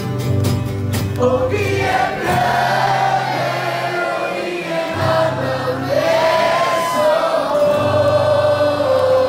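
Music: a song with many voices singing together in a choir-like chorus over a steady bass line.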